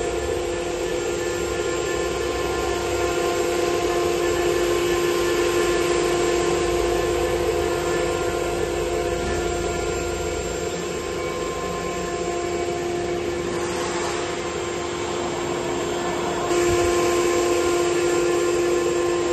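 4-axis CNC wood router spindle running with a steady high whine while its end mill cuts a wooden workpiece. It grows louder about three-quarters of the way through.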